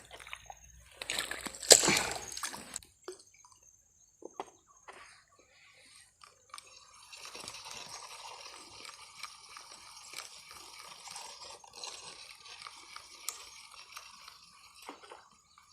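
Water splashing loudly for a moment about a second in, then scattered small wet clicks and a long stretch of faint steady trickling and dripping.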